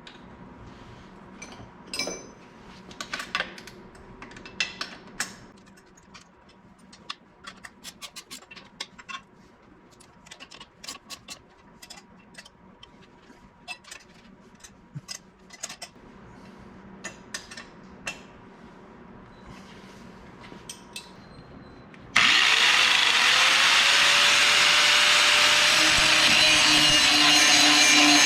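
Scattered clicks and knocks of parts and hand tools being handled, then about three-quarters of the way through a power tool starts suddenly with a quickly rising whine and runs loud and steady.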